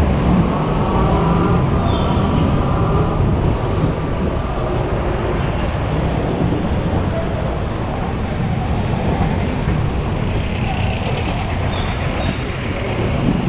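Steady, loud street traffic: road vehicle engines running and passing close by.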